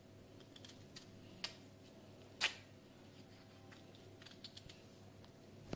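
Knife cutting the pithy core out of raw jackfruit: a few faint, scattered clicks and scrapes, the sharpest about two and a half seconds in.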